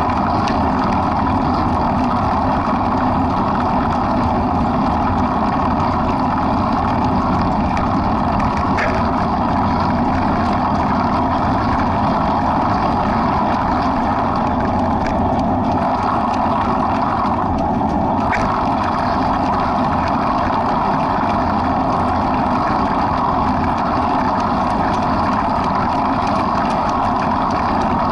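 Steady engine drone of a slow-moving vehicle, unchanging in level, with a few faint clicks.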